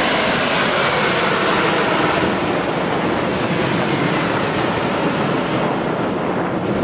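Airplane fly-by sound effect: a steady rushing noise whose pitch slowly falls as it passes.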